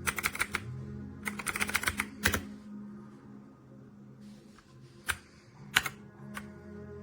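Typing on a Dierya T68SE 60% mechanical keyboard with red switches: two quick runs of keystrokes in the first two seconds, then a few single key presses, over background music.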